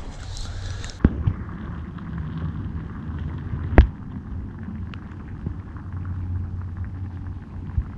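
Muffled low rumble picked up by an underwater camera in a creek, with two sharp knocks about one and four seconds in, the second the louder. A brief splashy hiss comes in the first second.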